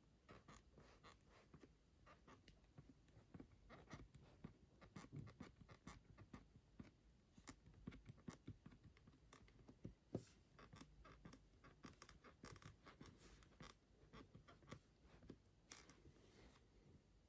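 Faint, irregular clicks and creaks from the back of a MacBook Pro 16-inch M2 Max as the laptop is pressed or shaken, with the sharpest click about ten seconds in.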